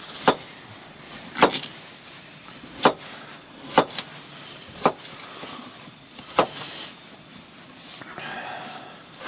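Camp knife chopping peeled russet potatoes on a plastic cutting board: about six sharp, separate knocks, roughly a second apart, as the blade cuts through and strikes the board.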